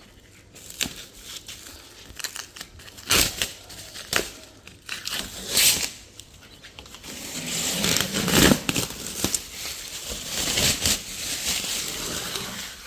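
Masking tape and thin masking rope being peeled off freshly painted panels and crumpled up: a few sharp rips and crinkles, then a longer run of steady tearing and rustling from about seven seconds in. The rope is sticking and coming off hard.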